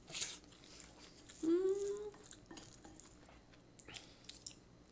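Close-miked chewing of a spoonful of rice, with a short hummed "mm" about a second and a half in. A few light clicks of a wooden spoon against the dishes follow near the end.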